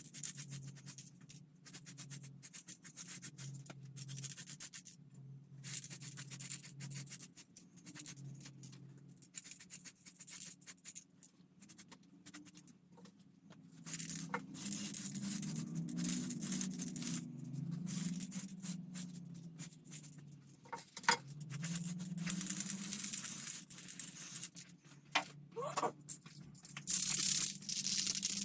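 Hand work on a plastic scale model: irregular rubbing, scratching and tearing sounds, louder and longer near the end, over faint background music.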